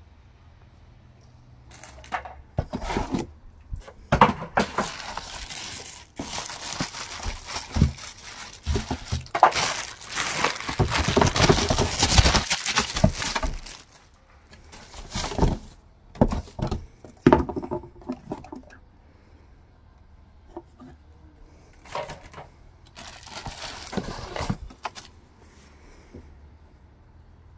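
Plastic packaging bags crinkling and rustling in bursts as wrapped parts are lifted out of a cardboard box, with a few knocks and scrapes of cardboard. Busiest around the middle, then sparser, stopping a few seconds before the end.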